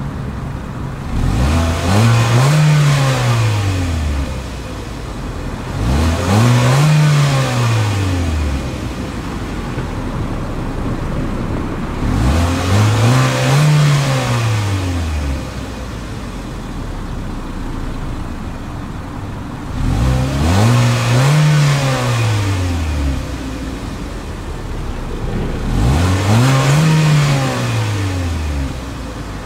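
2017 Kia Rio engine revved five times, each rev rising and falling back to idle over about three seconds, with the engine idling between the revs.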